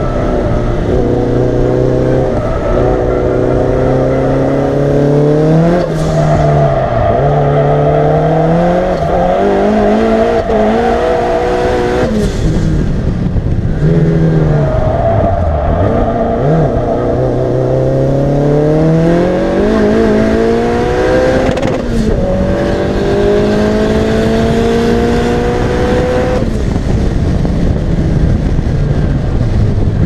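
Tuned Lancia Delta Integrale 16v's turbocharged four-cylinder engine, heard from inside the cabin, pulling hard on track. Its note climbs in each gear and drops sharply at gear changes about six, twelve and twenty-two seconds in. Around the middle the note falls as the car slows, then climbs again.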